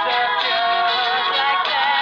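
Background music: a song whose sung melody holds and bends its notes over instrumental accompaniment.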